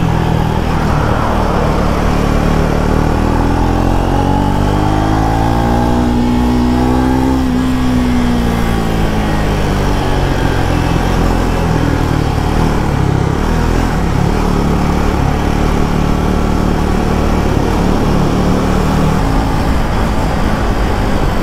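Triumph Speed 400's single-cylinder engine running under way with a steady rush of wind noise; its pitch rises from about four seconds in to nearly eight seconds, then falls back by about ten seconds.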